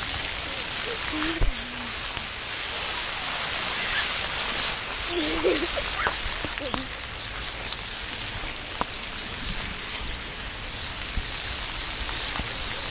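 Water jets of a pool splash-play structure spraying in a steady hiss, with water splashing onto a waterproof GoPro housing; louder splashes about a second in and again around six seconds.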